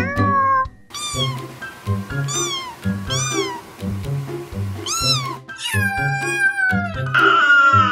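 A cat meowing over and over, a string of short calls that each rise and then fall in pitch, with a longer falling meow near the end, over background music with a steady beat.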